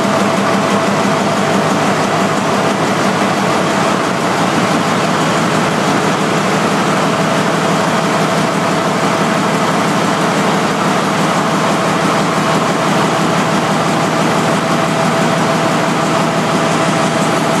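Large STX-built MAN in-line diesel engine running steadily on test with its coupled generator, a loud even drone with a rapid firing pulse and a steady whine over it.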